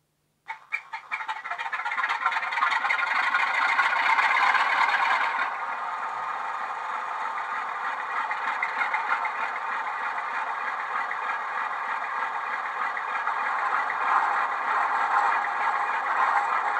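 A Class 47 diesel's Sulzer engine sound from a DCC sound decoder, played through two small tablet speakers in an OO gauge model, with little bass. A few clicks, then the engine starts and runs up with a rattle, and about five seconds in it settles to a steady idle.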